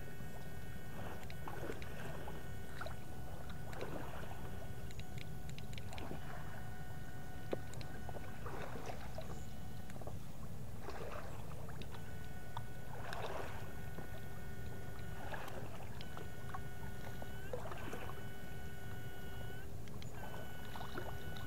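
Water splashing and sloshing in irregular strokes as someone wades, over a steady low rush. A battery electrofishing unit (PDC 8 FET) whines with a steady multi-toned pitch that switches on and off several times as the shocker is triggered.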